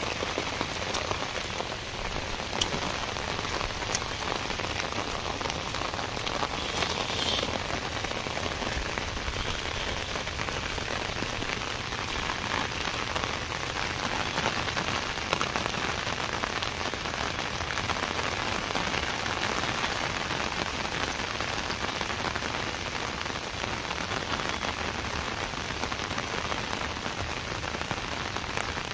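Steady rain falling, with a few sharp ticks of single drops in the first several seconds.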